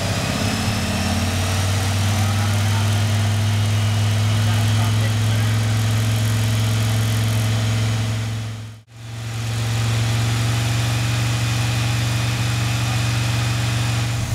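A 1969 Corvette's 350 Chevy small-block V8 running steadily while its total advance timing is set. The sound cuts out for an instant about nine seconds in, then carries on unchanged.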